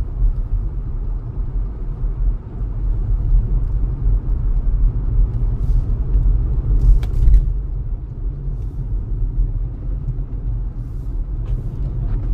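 Steady low rumble of a car driving on snow-covered streets, heard from inside the car, with a faint click or two about seven seconds in.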